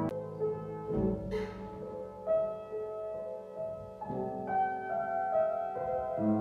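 Background piano music, slow held notes, with a brief hiss about a second and a half in.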